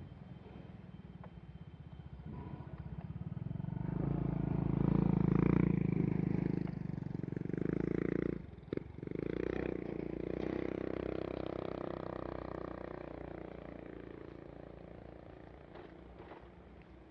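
A motorcycle engine approaching, passing close by and fading away. It grows louder to a peak about five seconds in, then dies down slowly over the rest of the time.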